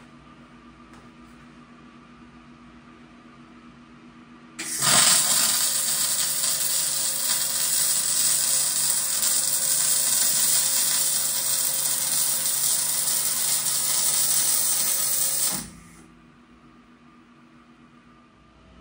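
MIG/MAG welding arc of an OTC Daihen CPTX-i 300C set to 280 amps with 1.0 mm steel wire, laying a fillet weld on a steel T-joint. The arc strikes sharply about four and a half seconds in, runs as a steady, loud hiss for about eleven seconds, and cuts off abruptly.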